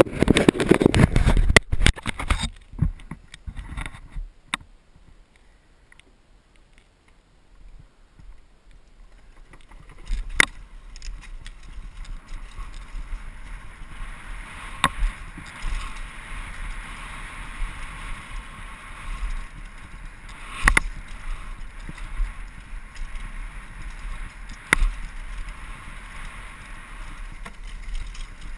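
Downhill mountain bike on a fast descent: a dense clatter and rattling for the first couple of seconds, then a quieter stretch. From about ten seconds in comes a steady rush of wind on the microphone, broken by a few sharp knocks from bumps.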